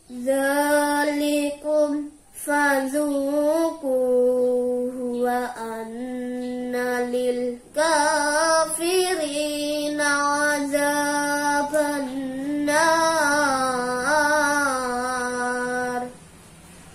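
A boy's voice reciting the Quran in melodic tilawah style, in long phrases of held notes with melismatic ornaments, broken by short breaths. It stops about a second before the end.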